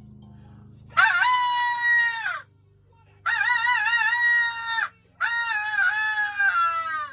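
A rooster crowing three times, each crow long and wavering, falling in pitch at the end.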